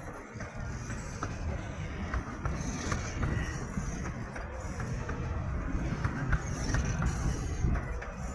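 Miniature steam locomotive at a station: a steady low rumble with light, irregular clicks and a few swells of hiss.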